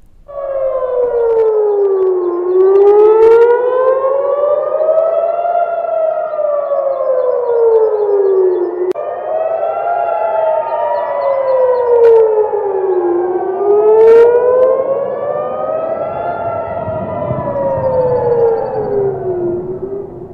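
Civil-defence air-raid siren wailing, its pitch sliding slowly up and down about every seven seconds: a warning of incoming missile fire telling people to take shelter.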